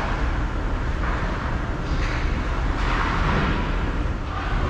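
Indoor ice hockey rink ambience: a steady low rumble, with a few short hissing scrapes of skates on the ice, around two and three seconds in.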